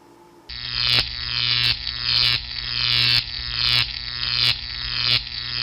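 A loud electric buzz with a steady hum under it, pulsing in falling sweeps about once every two-thirds of a second. It cuts off suddenly near the end.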